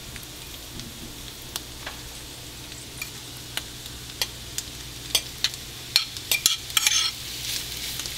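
Bacon sizzling in its grease in a frying pan: a steady hiss with scattered sharp pops and clicks that come thicker about five seconds in. The sizzle grows louder near the end.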